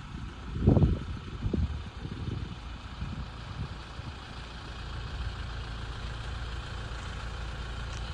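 Kenworth prime mover's diesel engine idling with a steady low rumble, with a few low thumps in the first couple of seconds.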